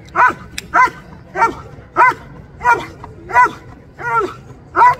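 German Shepherd barking rhythmically and insistently at a helper, eight loud barks in about five seconds: the bark-and-hold at the blind in Schutzhund protection work, where the dog must bark to guard the helper without biting.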